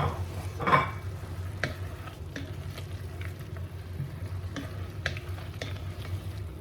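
Chicken and freshly added potatoes frying in oil in a pot while being stirred, the utensil clicking and scraping against the pot, the loudest scrape about a second in. A steady low hum runs underneath.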